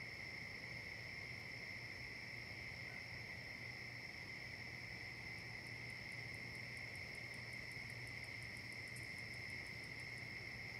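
Night chorus of crickets trilling steadily. About halfway through, a faint, very high ticking at about five a second joins and stops shortly before the end.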